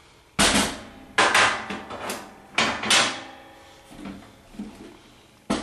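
A rod being pulled out of a vending tower laid on its side: a handful of sharp clunks with short ringing tails, and sliding and scraping between them.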